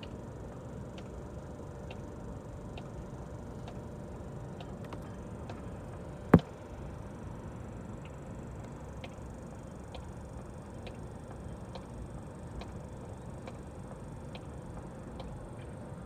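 One sharp, loud strike of a tool on metal at the car's wheel hub, about six seconds in, while stripped lug nuts are being worked loose. Underneath runs a steady low rumble with a faint, even tick about once a second.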